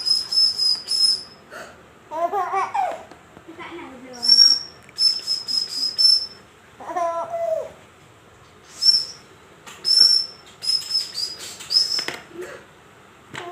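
A baby babbling and giggling in short bouts, between several quick runs of short, high-pitched squeaks.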